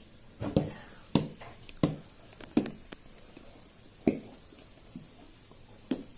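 Plastic glue bottle being squeezed nearly empty, giving a string of short sharp pops and squelches as air bubbles spurt out, about eight in all at uneven intervals.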